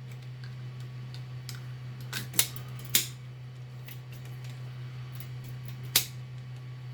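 Sharp clicks and light taps of the Nerf Zombie Driller's plastic parts being handled while the blaster is taken apart: two clicks about two and a half and three seconds in, and a louder one about six seconds in. A steady low hum runs underneath.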